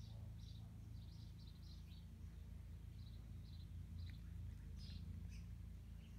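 Low steady hum with a dozen or more faint, short, high-pitched chirps.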